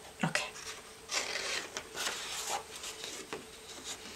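Sheet of paper being peeled off an inked Styrofoam printing plate: a short click, then a few noisy rustling pulls as the paper comes away from the oil-based ink.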